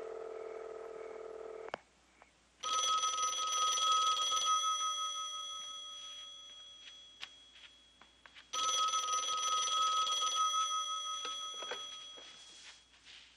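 A short steady tone, then an electromechanical desk telephone bell rings twice, about six seconds apart. Each ring is loud for about two seconds and then dies away.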